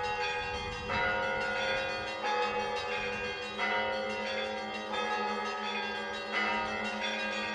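Monastery church bells ringing, a new strike about every second and a half, each ringing on under the next.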